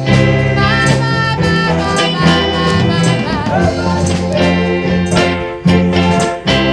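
Northern soul song played from a 45 rpm acetate disc: a lead voice singing over a band with a steady drum beat.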